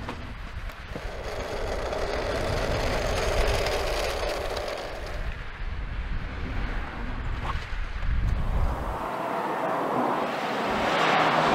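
An Audi hatchback driving on a test track: steady tyre and engine noise with some rumble, growing louder near the end as the car comes toward the microphone.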